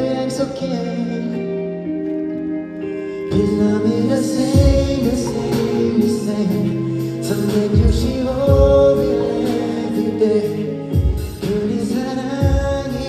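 A song performed live through a concert sound system: sung vocals over held chords, with a drum beat of low kicks and high hi-hat ticks coming in about three seconds in.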